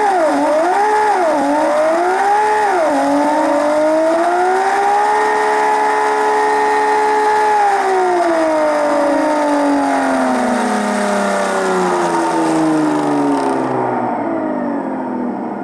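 Slot car's electric motor and gears whining on a test bench. The pitch goes up and down three times, then climbs to a steady flat-out pitch held for a few seconds, then winds down in a long falling whine as the car coasts to a stop.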